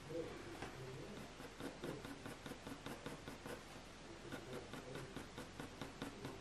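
Graphite pencil scratching across hot-pressed watercolour paper in quick, short strokes, about three or four a second, as fine grass blades and fur are flicked in.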